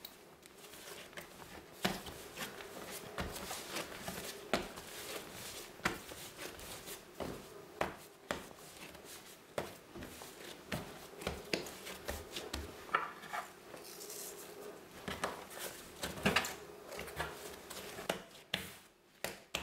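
Bread dough being kneaded by hand on a floured wooden board: irregular knocks and thuds as the dough is pressed and pushed against the wood, with rubbing and squishing between them. A faint steady hum runs underneath.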